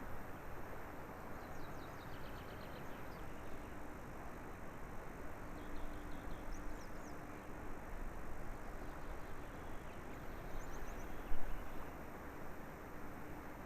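Outdoor ambience: a steady rush of noise with a faint distant engine hum, while small birds chirp in short high trills several times. A brief louder knock comes a little past the middle.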